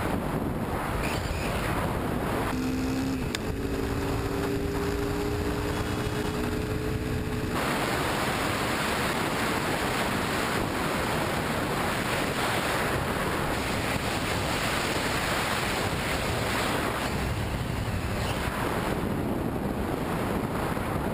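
Wind rushing over a helmet-mounted camera's microphone while riding a dirt bike down a gravel road. A steady engine note shows through for about five seconds near the start, rising briefly at its onset and then holding.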